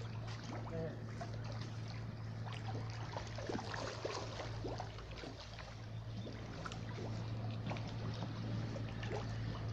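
Pond water splashing and dribbling in many small, irregular splashes as fish feed at the surface where feed is thrown in, over a steady low hum.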